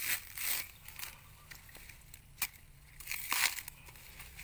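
Coconut husk being torn apart by hand: several short ripping, crackling pulls of dry fibre, with one sharp crack about halfway through.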